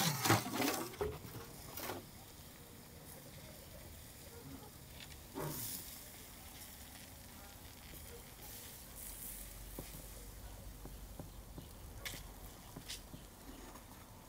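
Heavy metal lid of a tandoor oven clattering as it is dragged and lifted off in the first second. A few light knocks and clicks follow over a faint hiss as the skewered chickens are lifted out.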